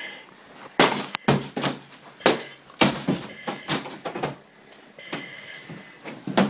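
Irregular knocks and bumps of a firefighter's gear and equipment as they move through a room during a vent-enter-search entry, about a dozen sharp hits.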